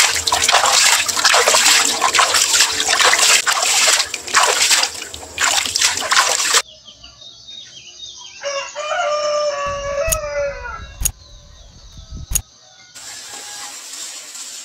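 A loud rushing, hissing noise cuts off suddenly about six seconds in. About two seconds later a rooster crows once, a drawn-out call lasting about two seconds, followed by three sharp clicks spaced about a second apart.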